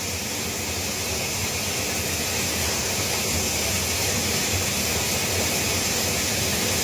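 Steady rushing hiss of a nearby waterfall and its stream, growing slightly louder over the first few seconds.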